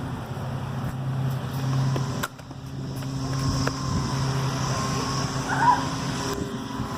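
Steady low motor hum, with a sudden drop in level a little over two seconds in.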